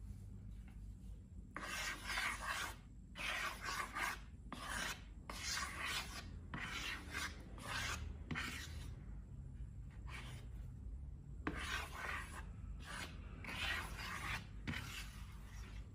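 A series of about a dozen rubbing, scraping strokes, each under a second, starting about a second and a half in, with a short pause midway.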